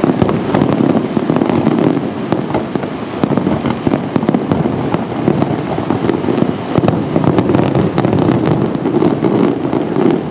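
Fireworks display barrage: many shells and crackling stars going off in quick succession, a dense continuous crackle studded with sharp pops.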